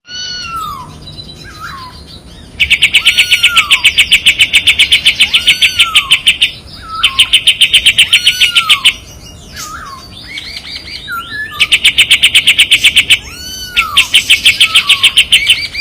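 Kapas tembak songbird singing its sharp rattling trills (besetan), four bursts of about seven or eight quick pulses a second, with short descending whistled notes between and over them.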